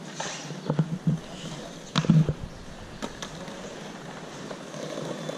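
Skateboard clacking on stone pavers: a couple of light taps, then a sharp smack about two seconds in and another a second later. After that, the wheels roll over the pavement.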